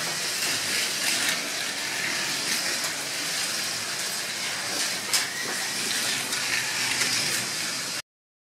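Slot cars running laps on a wooden track with copper-strip lanes: a steady whirring hiss of the small electric motors and pickup braids on the rails, with a few sharp clicks. It cuts off suddenly near the end.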